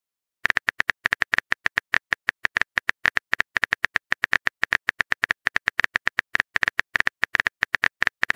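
Chat app's keyboard typing sound effect: a fast, even run of short clicks, about eight a second, starting about half a second in, as the next message is typed out.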